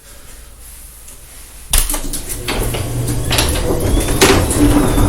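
Chain-drive garage door opener starting up about a second and a half in: a motor hum with the door rattling and clanking along its track, and a few faint squeaks. The chain runs with noticeable slack.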